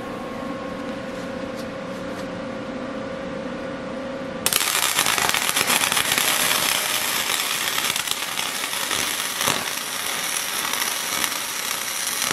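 Electric arc welding a winch mounting bracket onto the frame: after a few seconds of steady background hum, the arc strikes suddenly about four and a half seconds in and then crackles and sizzles steadily.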